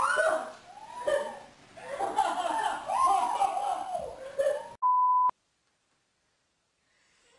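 Excited voices yelling and laughing, cut off about four and a half seconds in by a short, steady censor beep lasting about half a second.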